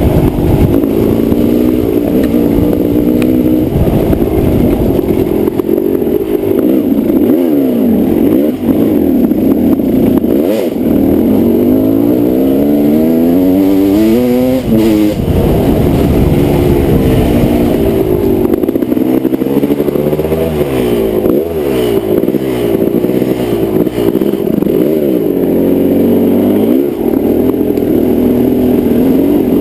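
Kawasaki KX250 dirt bike engine under way, its pitch climbing and dropping again and again with the throttle, with one long rising rev in the middle.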